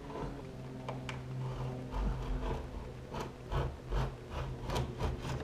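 Old wooden window sash being worked in its frame to break the paint holding it shut: irregular clicks, creaks and rubbing of wood, coming thicker in the second half, over a steady low hum.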